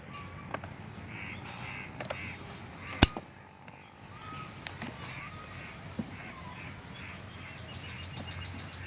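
Crows cawing several times, mixed with sharp clicks and one loud snap about three seconds in; a rapid high twittering comes near the end.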